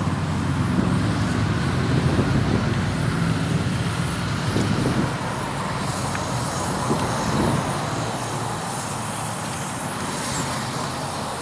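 Double Fairlie steam locomotive Merddin Emrys moving at walking pace: a steady low rumble with a few faint puffs around the middle.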